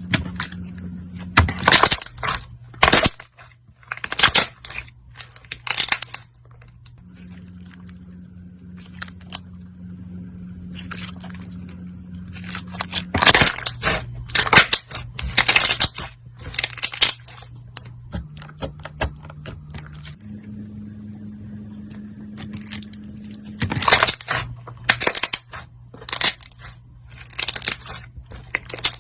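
Slime being pressed and squeezed by hand, crackling and popping in bursts of sharp clicks, with quieter stretches between the bursts.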